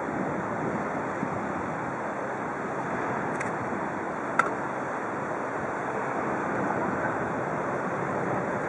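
Steady rushing of wind over the microphone and harbour water, with no distinct engine note. A single short sharp click a little over four seconds in.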